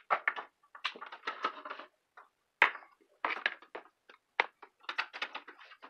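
Cables and plugs being handled and plugged in: irregular clusters of clicks, rattles and rustles, with one sharp knock about two and a half seconds in.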